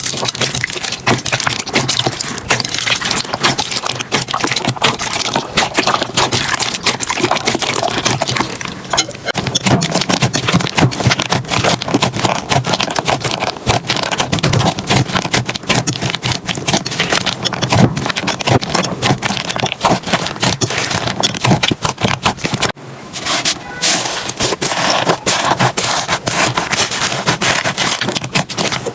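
Slime being squished and worked by hand: a dense, continuous run of small wet crackles and pops, broken off briefly about 23 seconds in before it carries on.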